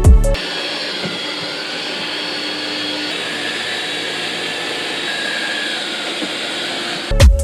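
eufy Clean X8 Pro robot vacuum running, a steady whir of its suction fans with a faint high whine.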